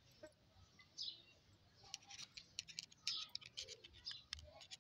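Small bird chirping faintly at first, then from about two seconds in rapid sharp clicks of steel cutter pliers being worked open and shut. The rust has been cleaned off and the pivot oiled, and the joint now moves freely.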